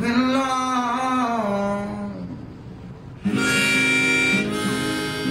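Acoustic guitar accompanying a held, wavering note that slides down and fades over the first two seconds; about three seconds in, a harmonica comes in loud with a sustained chord over the strummed guitar.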